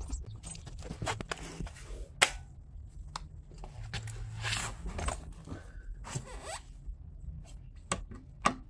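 Footsteps on a concrete floor, with rustling and clinking from a loaded tool belt. Scattered small clicks and knocks come from handling a cordless power tool and its battery.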